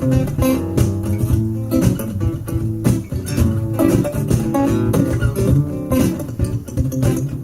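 Live acoustic guitar strumming with a low bass line, playing an instrumental passage of a song without vocals.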